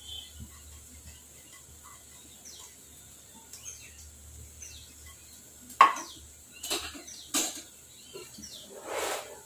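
Quiet kitchen with a few sharp clinks and knocks of pots and dishes in the second half, the first the loudest. Faint bird chirps in the background.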